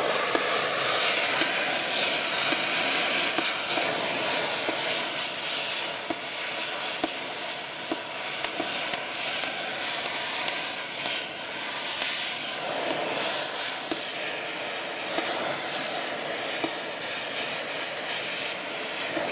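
Oxy-acetylene cutting torch hissing steadily as it burns through the rusted cotter pin in a steel excavator track's master pin, with scattered crackles.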